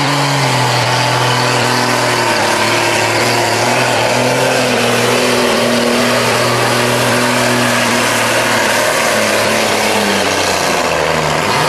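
Dodge Ram diesel pickup's engine running flat out under heavy load as it drags a pulling sled: a loud, steady drone whose pitch sags slightly about two seconds in and drops away near the end.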